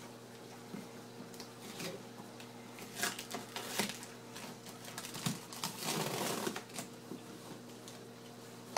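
Packaging being handled: scattered light clicks and rustles, with bursts of crinkling about three and six seconds in, over a steady low hum.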